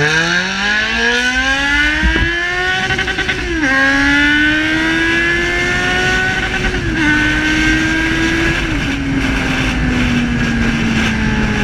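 Yamaha XJ6 inline-four engine through an Atalla 4-into-1 aftermarket exhaust, revving up hard under acceleration. The pitch climbs steeply and drops sharply at three upshifts, about three and a half, seven and eight and a half seconds in, then sinks slowly as the rider eases off.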